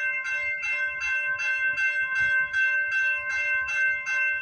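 Railway level-crossing warning bell ringing steadily at about three strikes a second: the crossing is activated for an approaching train.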